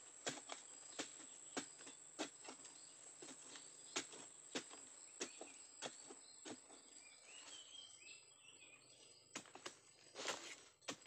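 A wooden digging stick stabbing into soil, a dull knock roughly every half second in a steady rhythm. It pauses for a couple of seconds about two-thirds of the way through, then resumes in a quick cluster. A steady high-pitched insect drone runs underneath.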